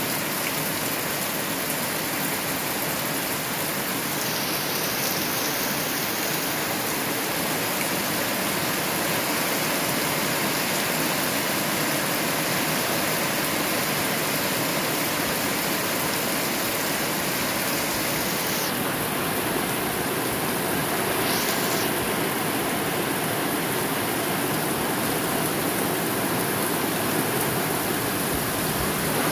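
Heavy rain pouring steadily onto plants and ground, with muddy runoff water flowing over the ground.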